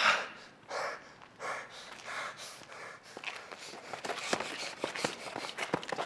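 A man on the ground being kicked and punched: loud breathy gasps of pain in the first few seconds, then from about three seconds in a quick run of sharp thuds and slaps of the blows landing.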